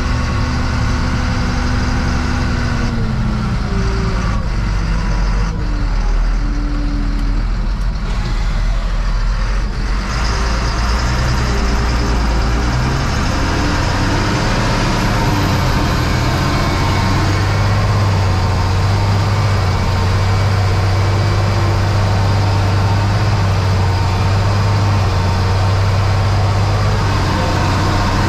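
Fendt 926 Vario tractor's six-cylinder diesel engine running steadily, heard from inside the cab. Its tone drops about three seconds in, more noise builds in the upper range from about ten seconds in, and a stronger, steady low engine note settles in from about sixteen seconds.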